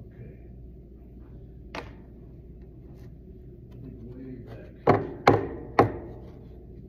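Handling knocks as a sheet of drawing paper is lifted and held up close to the phone: a light tap about two seconds in, then three sharp knocks about half a second apart.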